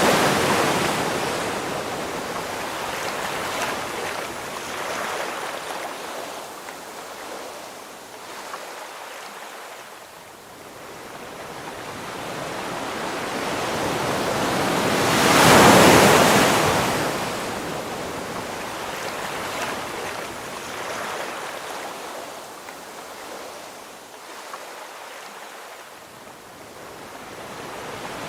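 Ocean waves breaking on the shore: one wave crashing as the sound begins, the wash dying away, then a bigger wave building and crashing about halfway through before fading, with the next starting to build near the end.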